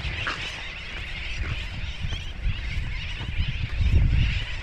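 Many birds calling at once in a dense, steady chatter, over wind buffeting the microphone.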